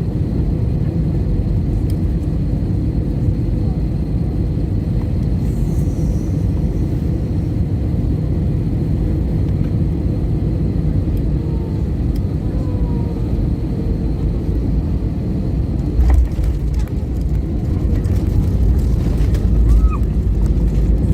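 Steady low rumble of an Airbus A320-family airliner heard from inside the cabin, with a single thump about sixteen seconds in. The rumble grows louder near the end.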